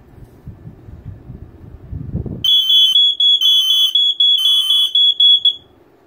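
Smoke alarm's piezo horn sounding loudly in a three-beep temporal (code 3) pattern, about half a second per beep, then falling silent. A low rumble of handling comes before it.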